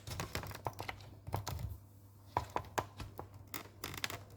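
Handling noise from the recording phone or camera being moved and repositioned: a string of light, irregular taps and clicks with some rustling.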